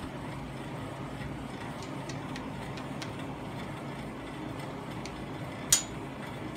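Steady low background hum with a few faint ticks, then one sharp click near the end.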